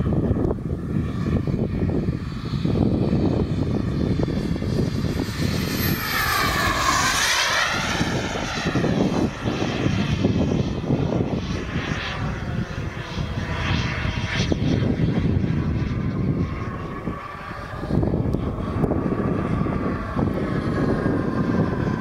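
JetCat Titan model turbine engine on a radio-controlled jet, running at flight power as the jet flies passes, with a steady rumble under a whine. The whine's pitch sweeps down sharply about six seconds in as the jet goes by, and glides up and down with further passes later.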